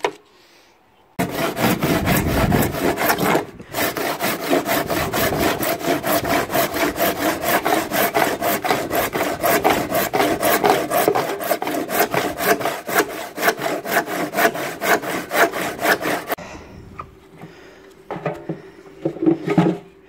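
Hand saw cutting through the glued-shut plastic outer tub of a Hotpoint washing machine, in quick, even strokes about three a second with a short break a few seconds in; this is the sealed tub being cut open to reach the failed drum bearings. The sawing stops about sixteen seconds in, followed by a few quieter knocks and scrapes as the tub is handled.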